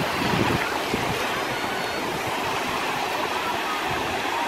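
Sea surf: small waves breaking and washing over the shallows in a steady rush.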